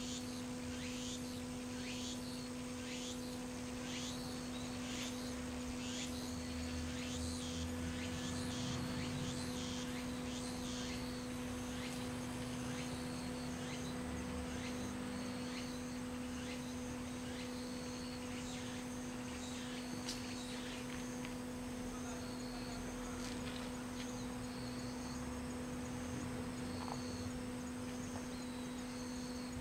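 Insects chirping in repeated short high calls, quick falling chirps in the first half and evenly spaced pulses after, over a steady low hum.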